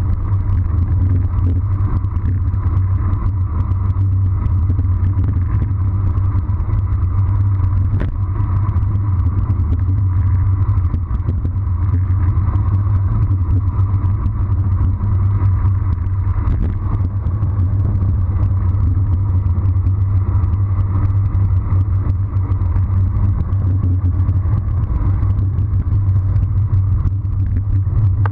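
Wind rushing over an action camera's microphone on a road bicycle during a fast descent, a steady low rumble with one sharp click about eight seconds in.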